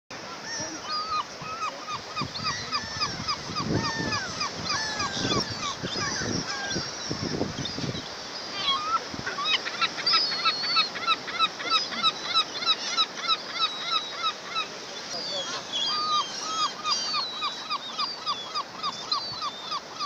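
A flock of seabirds calling: many short, clear calls repeated several times a second and overlapping in a continuous chattering chorus. Low rumbles come and go between about three and eight seconds in.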